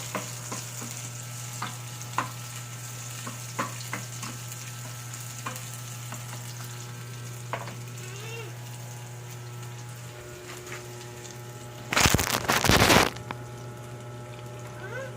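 Potatoes frying in hot oil in a pan: a steady sizzle with scattered pops and crackles. About twelve seconds in, a louder burst of noise lasts about a second.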